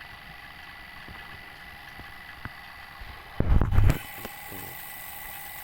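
Refrigeration vacuum pump running with a steady hum, with a loud brief rumbling bump about three and a half seconds in, after which the hum takes on a brighter hiss.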